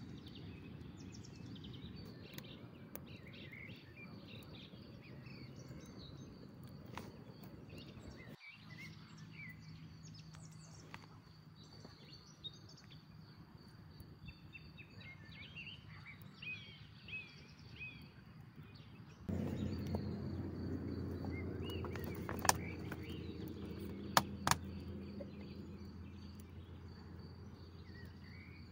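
Outdoor ambience: small birds chirping now and then over a steady high insect drone and a low rumble. About two-thirds of the way through, a louder rumble sets in, with a few sharp clicks.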